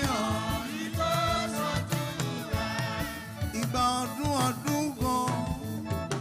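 Church choir singing a gospel song over a steady beat of drums and instruments.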